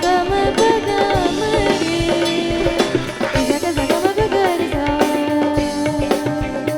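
Live band playing an instrumental bhajan passage: a gliding melodic lead line over drums and percussion with a steady beat.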